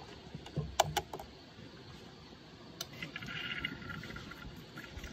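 Disposable razor scraping stubble under the nose in short, faint strokes, with a couple of sharp clicks about a second in and a longer rasp a little past halfway.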